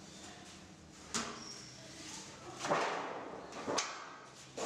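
Thin galvanized steel sheet clanking and knocking against a manual sheet-metal folding brake as it is handled and bent: a few sharp metallic hits, the loudest about halfway through, with a short ring after it.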